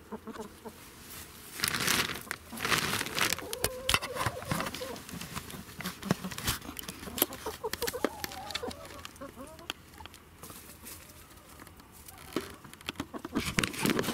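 Cloth or plastic sheeting on a chicken coop rustling and crinkling as it is handled, starting about two seconds in and again near the end. In between, a hen clucks in short, wavering notes.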